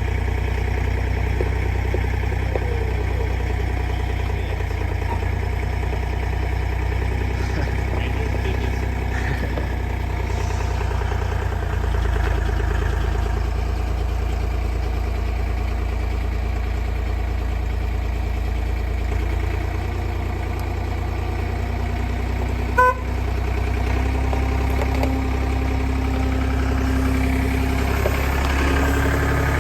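A vehicle engine running steadily, with one short horn toot about 23 seconds in.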